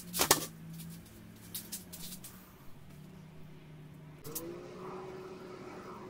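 A heavy thump as a used car tyre is set down on a wooden plank tabletop, followed by a few light knocks. A steady low mechanical hum runs underneath and is replaced about four seconds in by a higher hum that slides down in pitch and then holds steady.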